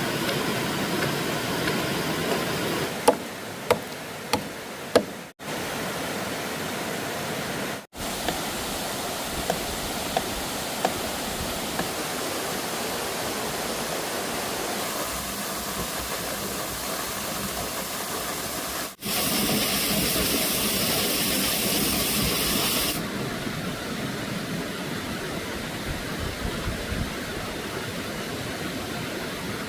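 Steady rushing of running water, with a few sharp clicks early on and a brighter hiss for a few seconds past the middle.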